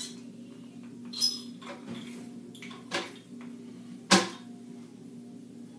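Three short, sharp clicks and knocks of objects being handled and set down, the loudest about four seconds in, over a steady low hum.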